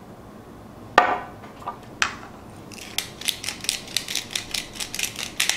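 Two sharp knocks, then a hand-twisted black pepper grinder grinding peppercorns: a quick run of dry, rasping clicks, about six a second, for roughly three seconds.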